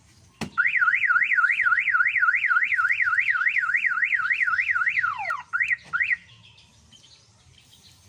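Newly installed aftermarket car alarm siren on a Toyota Corolla going through its warning test: a fast up-and-down warble, about four sweeps a second, then a falling swoop and two short chirps before it cuts off about six seconds in. A sharp click comes just before the siren starts.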